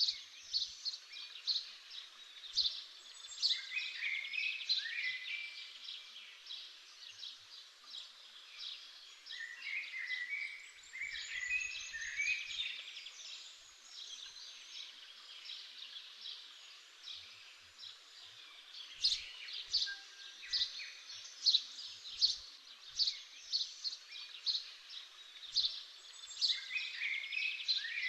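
Birds chirping and calling: a dense run of short, high chirps with recurring lower warbled phrases.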